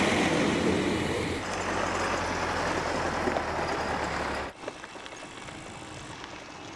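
A Steyr 8080 tractor's diesel engine running with a steady low drone, louder and rougher for about the first second and a half. It cuts off suddenly about four and a half seconds in, leaving a quieter, even background noise.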